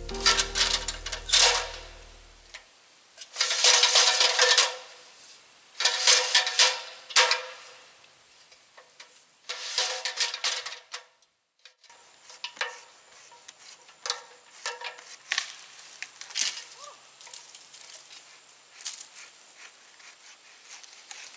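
Background music fades out at the start. Then come repeated second-long bursts of rustling and scraping with light metallic clinks, from a ladder against a tree trunk being handled and climbed.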